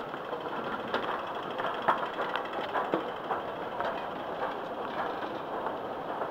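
Steady mechanical running noise of an underground station, with a few sharp clicks and knocks.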